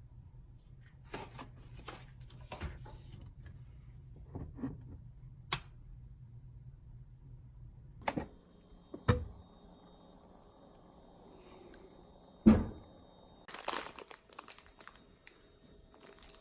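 Scattered knocks and clicks of things being handled, over a low hum that gives way about halfway to a faint steady hiss. The loudest knock comes about three-quarters of the way in, followed by a short cluster of clicks.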